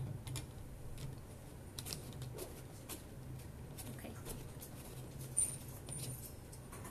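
Light plastic clicks and scrapes from a plastic comb-applicator oil bottle being handled, its comb cap worked at the top of the bottle, with the sharpest click about five and a half seconds in. A low steady hum runs underneath.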